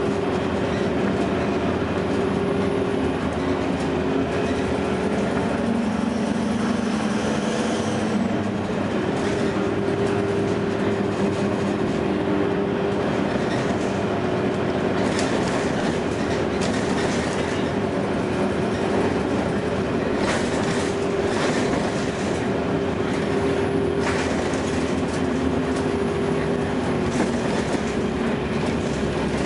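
2009 Gillig low-floor hybrid bus with a Cummins ISB diesel and Allison EP40 hybrid drive, under way: the drive runs with a steady whine, its pitch rising for a moment about a quarter of the way in. Several short knocks or rattles come through in the second half.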